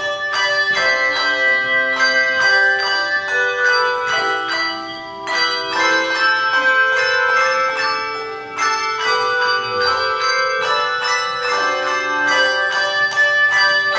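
A handchime choir playing a hymn tune: many chimes struck in quick succession, their clear tones ringing on and overlapping, briefly softer about five and eight and a half seconds in.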